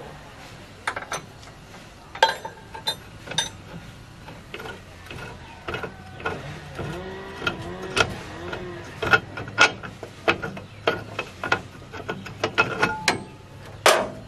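Metal tools and parts clinking and knocking against each other at an irregular pace, with brief ringing after the sharper strikes, the kind of sound that comes from working on tractor parts by hand. The loudest knock comes near the end.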